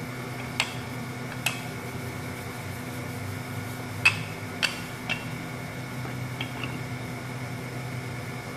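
Wooden rolling pin clicking and knocking against a marble countertop while a ball of dough is rolled out: about seven short sharp taps, the loudest about four seconds in. A steady hum runs underneath.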